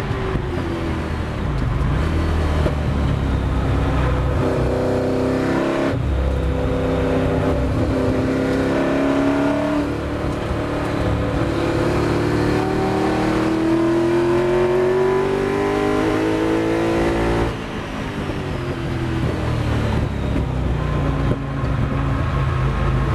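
Ford GT40 V8 race engine heard from inside the cockpit, with road and wind noise. The revs fall under braking, then the note breaks and climbs twice as the car pulls through the gears. About three-quarters through there is a brief lift, and the engine picks up again.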